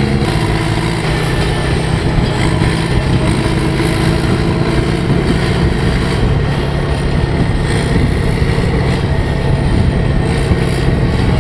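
Deutz D 4006 tractor's air-cooled three-cylinder diesel running steadily under load while pulling a loaded grass wagon. The engine has been tuned from its original 35 hp to around 100 hp.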